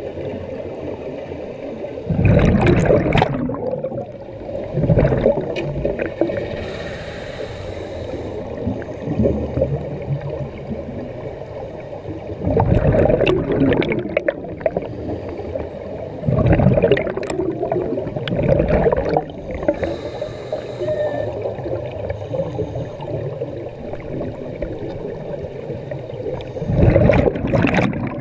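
Scuba diver breathing through a regulator underwater: a hiss on each inhalation and a loud burst of bubbles on each exhalation, repeated several times over a steady underwater background.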